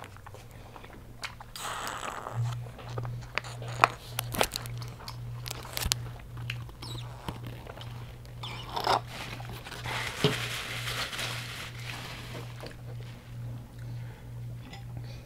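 Crunching bites and chewing of deep-fried, Hot Cheetos-crusted seafood: sharp crackly crunches scattered throughout, over a low pulsing hum that starts about two seconds in.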